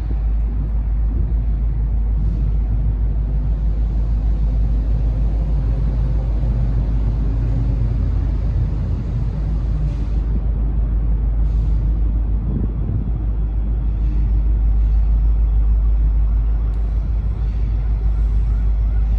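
Diesel freight locomotive running slowly past, a steady low engine rumble, with a few brief sharper noises about two, ten and eleven and a half seconds in.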